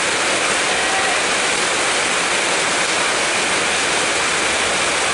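Heavy rain pouring down steadily, a loud, even hiss.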